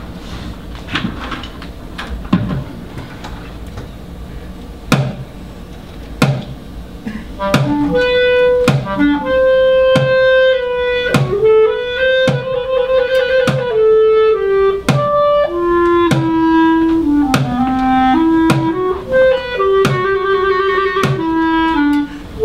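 A plastic bucket struck with drumsticks, a few scattered hits at first. About a third of the way in a clarinet enters with a slow melody, and the bucket keeps time under it with roughly one hit a second.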